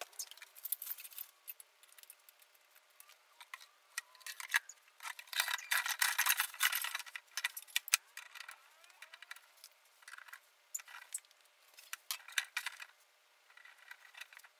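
Sped-up clinking and rattling of metal poles and frame parts being handled and fitted together, in quick irregular clatters that come thickest about a third of the way in. The sound is thin, with no low end.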